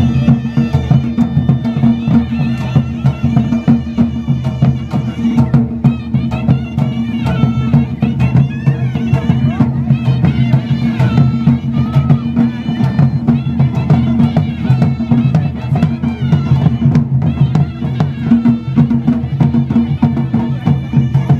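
Himachali Nati folk music played live: a high melody line over steady drumming.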